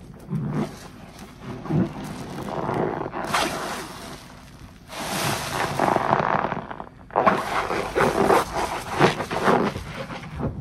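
A soapy kitchen sponge squeezed by gloved hands in a basin of thick JOY dish-soap lather: wet squelching and crackling of suds. A longer hissing, fizzing stretch comes around the middle as the foam-laden sponge is held up, then the squelching squeezes start again.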